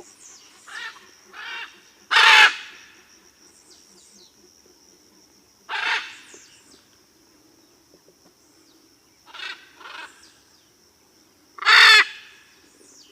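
Blue-and-yellow macaw giving about seven short, harsh squawks, the loudest two about two seconds in and near the end. A steady high-pitched insect drone runs underneath.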